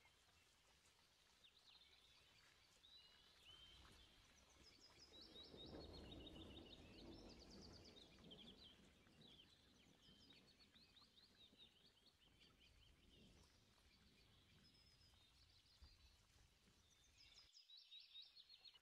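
Near silence with faint bird chirping: quick, repeated twittering trills on and off throughout, busiest near the end, over a soft low swell of background noise in the middle.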